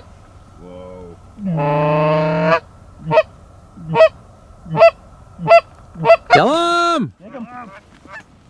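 Canada goose honks and clucks, loud and close. A long honk is followed by five short, sharp clucks about one every 0.7 seconds, then a second long honk and a few softer short notes near the end.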